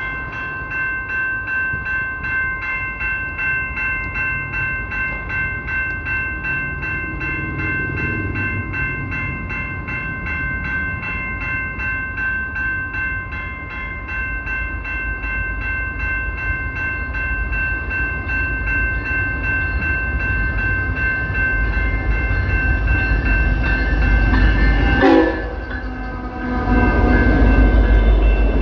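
A train's locomotive air horn held in one long, steady blast for about twenty-five seconds, then cut off abruptly. Under it and after it, the low rumble of the train runs on and grows louder near the end.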